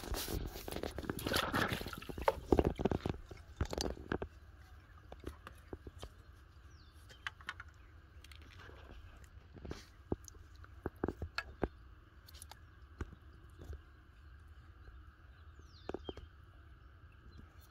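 Clear plastic bag crinkling and rustling loudly for about the first four seconds as a fish is handled in it. After that it is quieter, with scattered small handling clicks and a couple of short chirps.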